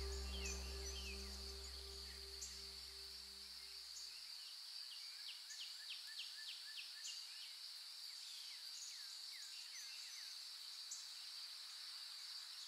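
Faint outdoor ambience: a steady, high-pitched insect buzz with scattered small-bird chirps. Soft background music fades out over the first few seconds.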